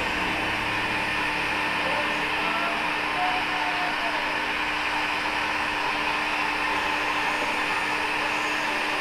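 Handheld electric heat gun blowing steadily, an even airy rush with a constant low hum, as it is passed over freshly screen-printed ink on a T-shirt to dry it.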